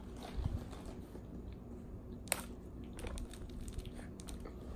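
Faint, scattered clicks and light crunching from crunchy sriracha-coated green peas being tipped out of their snack bag, handled and eaten, with one sharper click about halfway through.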